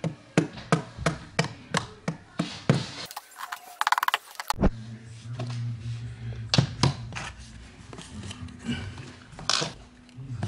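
Hand hammer striking in quick succession, about three blows a second, for the first three seconds, then a few separate knocks later on.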